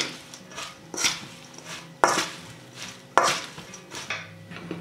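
Dressed arugula being tossed in a stainless steel bowl with a metal utensil: five sharp scraping knocks of the utensil on the bowl, about a second apart, with the soft rustle of the leaves between.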